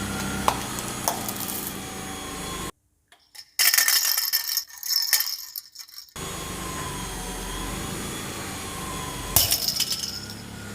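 A car's tyre crushing brittle, crunchy objects, with loud clusters of cracking and crackling: a long run in the middle and a second short burst with a thump near the end. A car engine hums steadily before and between the crunches.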